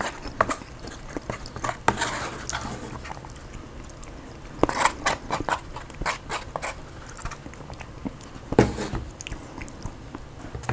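White plastic spoon scraping and scooping the last food from a disposable bowl, with chewing and mouth sounds in between, in irregular short scrapes and clicks.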